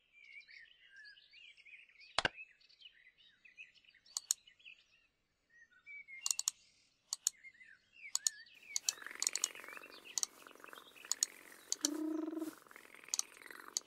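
Cartoon sound effects: twittering, bird-like chirps with a sharp click about two seconds in. From about eight seconds it becomes a busier run of quick clicks and chirps, with a brief low hum near the end.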